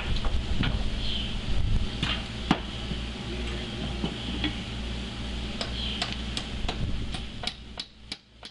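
Hammer tapping alignment pins into a steel seal housing: irregular light taps, about two a second, over a steady low hum.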